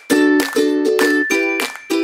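Background music: strummed chords in a steady rhythm.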